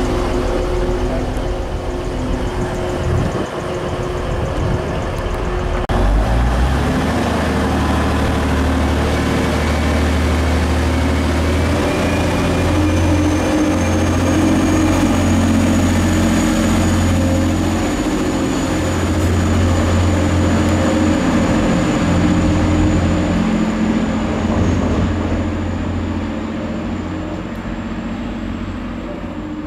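TransPennine Express Class 185 diesel multiple unit pulling away from the platform. Its underfloor diesel engines idle, then about six seconds in rev up and run hard at a steady drone as the train accelerates. A faint high whine sets in about halfway through, and the sound fades near the end as the train draws away.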